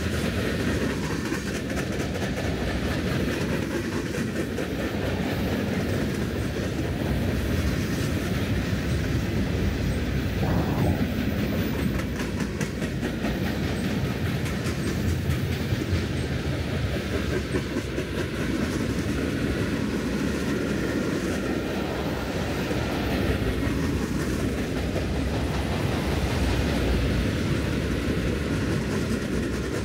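Freight train's cars (tank cars and covered hoppers) rolling past at close range: a steady rumble of steel wheels on the rails, with a continuous run of rapid clicks.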